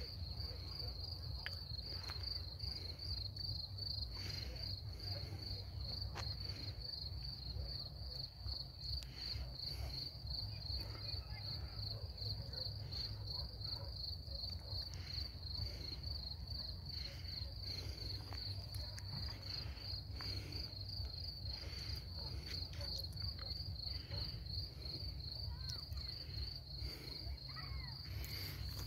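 Cricket chirping in an even, unbroken string of short chirps, with a steady low rumble underneath.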